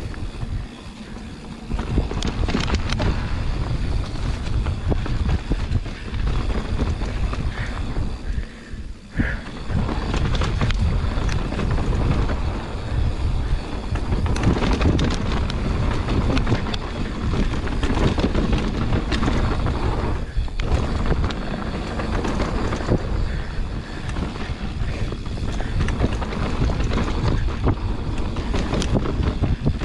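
Wind buffeting the camera microphone and tyres rolling over dirt on a fast mountain bike descent, with frequent clicks and rattles from the bike over bumps. The rush drops briefly a few times.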